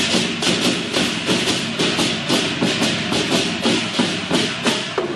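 Procession drums and clashing cymbals beaten in a steady fast rhythm, about three strokes a second, with the cymbals' bright ringing filling the gaps.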